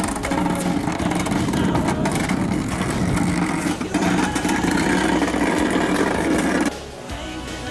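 A boat engine running loudly and steadily, cutting off suddenly about seven seconds in, where music takes over.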